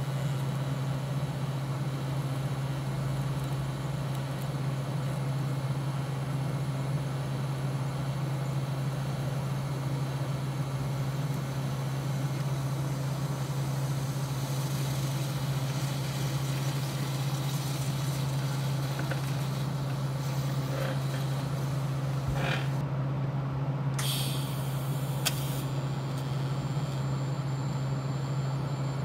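Steady low machine hum that does not change, with a few short clicks about three quarters of the way through.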